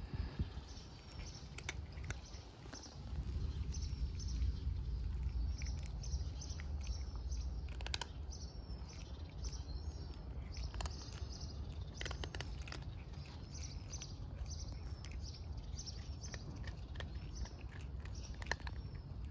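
Cats crunching dry kibble, with small sharp crunches scattered irregularly. Small birds chirp again and again in the background, over a steady low rumble.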